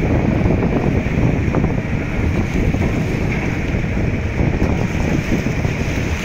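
Wind buffeting the microphone in a steady low rumble, with sea noise mixed in.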